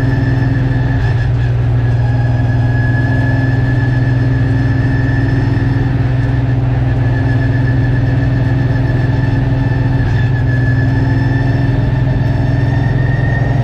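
Late Model race car's V8 engine running at steady revs, heard from inside the cockpit: a loud, unchanging drone with a steady high whine above it.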